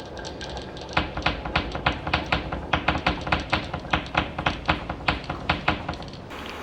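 Marbles clacking down a wooden marble run: a quick, irregular series of sharp clicks, about four a second, starting about a second in and cutting off suddenly near the end.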